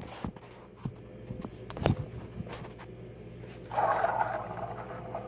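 A few light knocks as a plastic Road Rippers toy truck is handled, then, about four seconds in, a rushing noise lasting about a second and a half as the truck moves along the hard floor.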